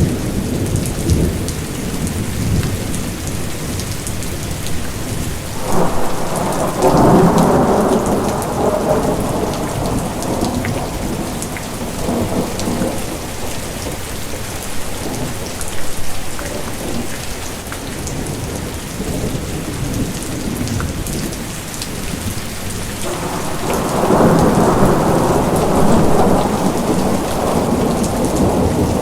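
Steady heavy rain with rolling thunder that rumbles up twice, first about six seconds in and again near the end.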